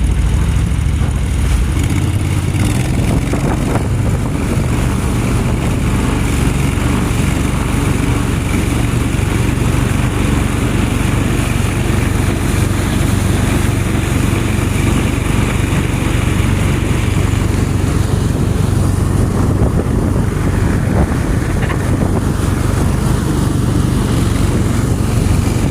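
Mud boat's motor running steadily under way, holding an even speed and loudness throughout.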